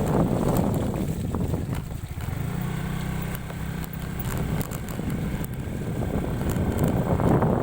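Suzuki Skydrive Crossover scooter's small single-cylinder engine running under way, with wind noise on the microphone. The engine eases off about two seconds in and builds again near the end.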